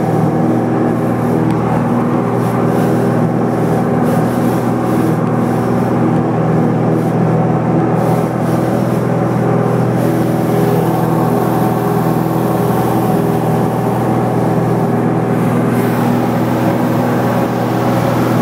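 Small airplane's engine and propeller running steadily at high power, a loud, even drone whose pitch does not change.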